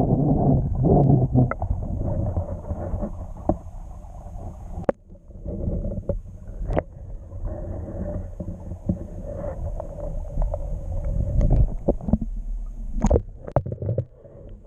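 Muffled underwater sound picked up by a camera held beneath a gravel-bottomed river's surface: a low rumble of moving water with a few sharp clicks and knocks.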